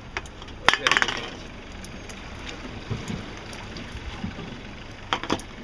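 Empty aluminium beer cans clinking and knocking as they are handled and set down, in a cluster about a second in and again near the end, over the steady drone of the boat under way.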